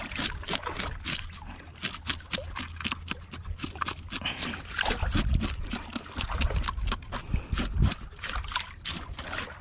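Kahawai sizzling and crackling as it grills: a dense, irregular run of small crackles and pops over a low rumble.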